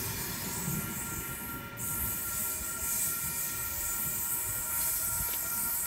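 An OSCAR (H-set) electric multiple unit pulls away. Its traction equipment gives a steady whine with two fixed tones over a low rumble of wheels on rail and a high hiss.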